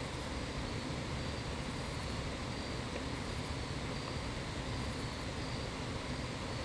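Steady outdoor background noise, a low rumble with hiss, and a faint high-pitched tone pulsing about once a second.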